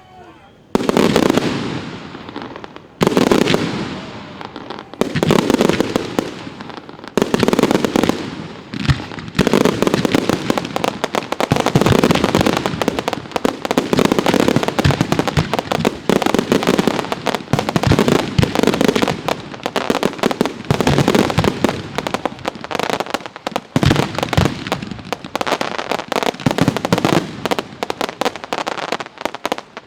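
Fireworks display: aerial shells bursting one every second or two, then from about nine seconds in a dense barrage of bursts and crackle with hardly a break, stopping shortly before the end.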